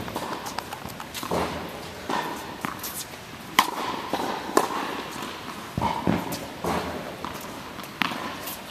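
Tennis balls being struck by rackets and bouncing on an indoor hard court: sharp pops about a second apart, echoing in the hall, with footsteps between.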